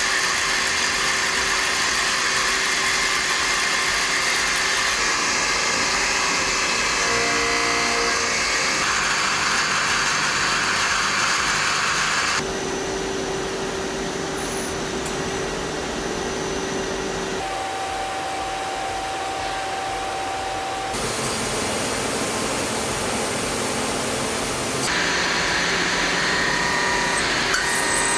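Hwacheon Hi-TECH 230 CNC turning center machining a hydraulic valve bushing: a steady machine whine and hiss of the spindle, live tooling and cutting, with held tones that shift as the operations change from turning to cross-drilling to drilling. The sound changes abruptly in pitch and level several times.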